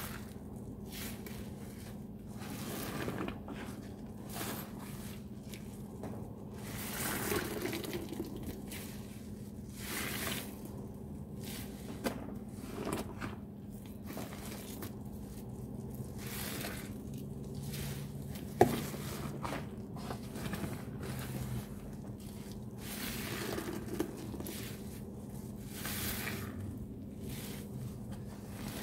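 Sponges loaded with thick, foamy Ajax cleanser paste being squeezed and kneaded by gloved hands: wet squishing and squelching in irregular bursts over a steady low hum, with a sharp click about two-thirds of the way through.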